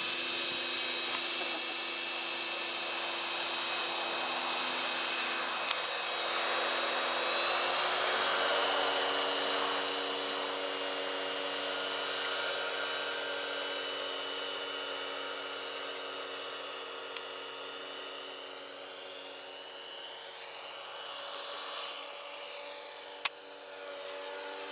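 Align T-Rex 600 radio-controlled helicopter running: a steady high whine over a deeper rotor hum, stepping up in pitch about eight seconds in. It then grows fainter, with a wavering pitch, as it flies farther off. A single sharp click comes near the end.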